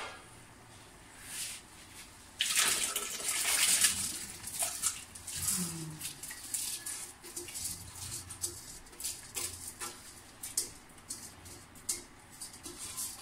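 Rice being tipped from a scoop into a large aluminium pot of boiling water: a splashing rush about two and a half seconds in, then scattered small splashes and clicks as more is added.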